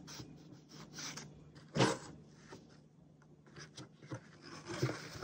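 Hands handling a wooden embroidery hoop, fingers rubbing and pressing on the fabric stretched taut in it: a series of short scratchy rustles, the loudest about two seconds in.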